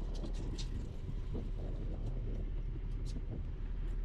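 Fishing boat's engine idling, a steady low hum, with a few faint short ticks about two to three seconds in.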